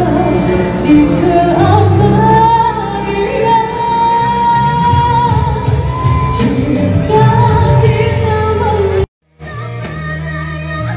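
A woman sings a pop ballad into a microphone over amplified backing music, holding one long high note in the middle. About nine seconds in, the sound cuts out for a moment, then her singing resumes over different accompaniment.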